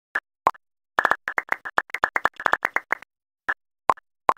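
Short pop sound effects, one for each element popping into an animated logo: two single pops, then a quick run of about twenty over two seconds, then three more spaced about half a second apart, with silence between.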